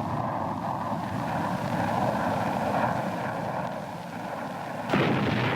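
Military aircraft engine noise, a steady roar, then a sudden explosion about five seconds in, from an air strike.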